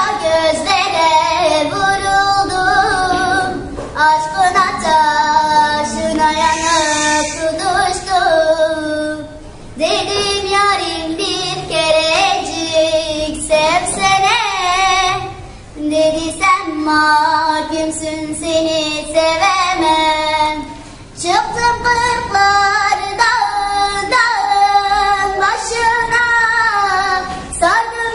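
A young girl singing a sad song unaccompanied, in long held, wavering phrases with brief breaths between them, about every five or six seconds.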